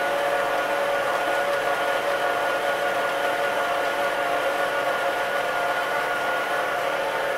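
Electric stand mixer motor running steadily with a whine, its dough hook turning bread dough in a stainless steel bowl.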